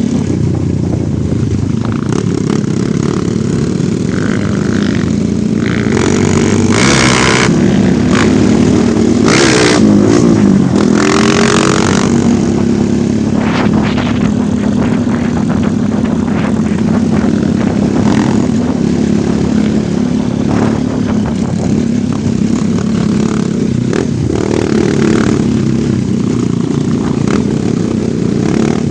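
Off-road motorcycle engine running under way, its pitch rising and falling with the throttle. Several short rushing noise bursts come in the first half.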